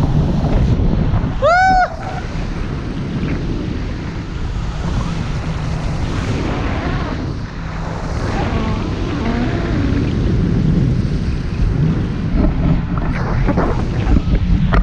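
Wind buffeting an action camera's microphone in tandem paragliding flight, a loud, steady low rumble. About a second and a half in, a short tone rises and falls once over it.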